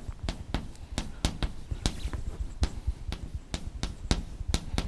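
Chalk tapping and scraping on a blackboard as words are written: an irregular run of sharp clicks, several a second.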